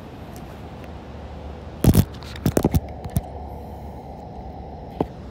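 Handling noise from a phone camera being picked up and moved: a couple of loud rubbing knocks about two seconds in, then a few lighter clicks, and the sound goes muffled for a while. Steady surf from breaking waves runs underneath.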